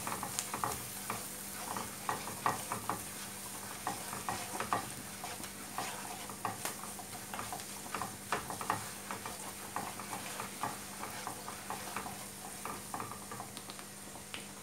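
Sliced onions frying in oil in a pan, sizzling steadily, while a spatula stirs them with irregular light scrapes and taps against the pan.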